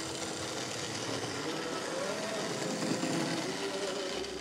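Old Lima HO-scale starter-set steam locomotive running: its small electric motor whines with a wavering pitch over a steady hiss of wheels rolling on the track.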